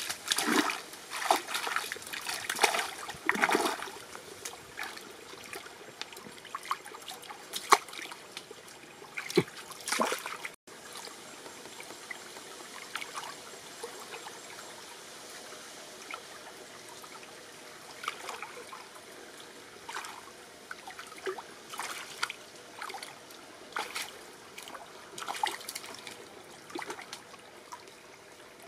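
Shallow stream trickling steadily, with hands and feet splashing and sloshing in the water while groping along the muddy bottom for fish. The splashes come in irregular bursts, thickest in the first few seconds and again in the second half.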